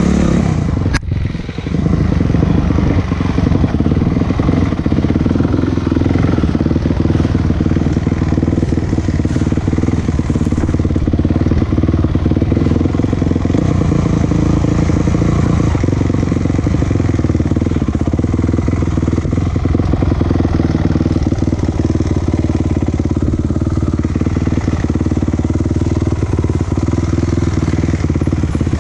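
A motor vehicle engine running steadily, with a brief dip in level about a second in.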